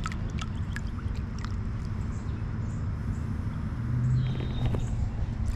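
Largemouth bass being released into shallow creek water, with a few light splashes and drips in the first second and a half, over a steady low rumble of wind on the microphone.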